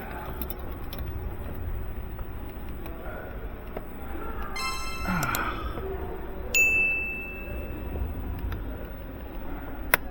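A single high, clear ding about two-thirds of the way through, ringing out and fading over about a second and a half, after a shorter bright tone a little earlier. A sharp click comes near the end, over a steady low background rumble.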